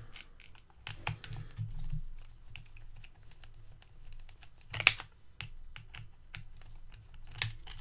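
Hands handling the plastic front bumper and small parts of an RC car chassis: a run of light plastic clicks and taps, with a sharper knock about five seconds in and another near the end.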